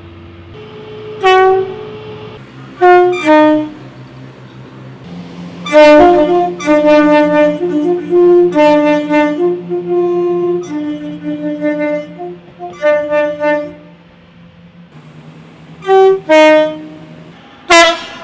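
A train's two-tone horn sounding short blasts that switch between a high and a low note. A pair comes around three seconds in, a quick run of alternating toots follows from about six to thirteen seconds, and another high-low pair comes near the end, all over a steady low hum.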